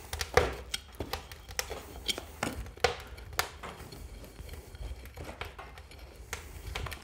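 Steel nail bar being jabbed and churned into a plastic bucket of oil-soaked sawdust to mix it. It makes irregular knocks and scrapes, about two a second.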